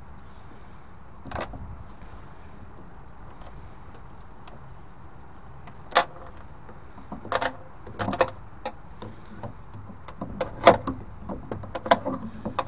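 A sharp click about six seconds in, then irregular clinks and knocks of a screwdriver and metal parts as a screw dropped inside a gas boiler's casing is hunted for among the pipework at the bottom.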